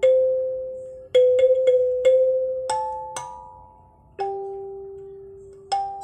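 Wooden-bodied kalimba (thumb piano) with metal tines plucked by the thumbs, playing a slow melody of single notes. Each note rings on and slowly fades, with a quick run of four notes a little past the first second.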